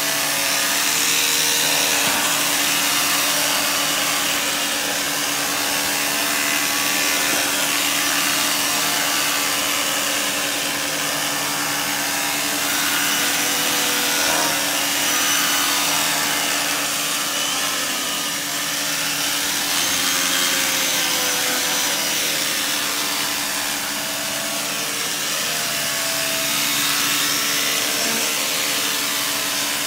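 Janilink carpet extractor running, its vacuum motor sucking through the hand tool as it is worked back and forth over the carpet: a steady loud rushing hiss with a low hum, and a faint whistling pitch that wavers up and down as the tool moves.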